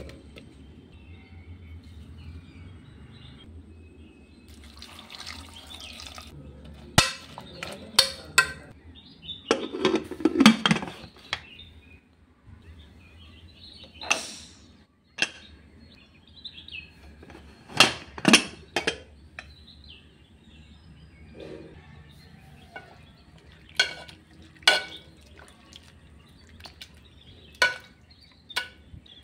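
Clatter of cooking in an aluminium pressure cooker: vegetable pieces dropping into the pot, the pot and lid being handled, and a masher knocking against the cooked vegetables near the end. The sound comes as scattered sharp knocks with a short hiss early on.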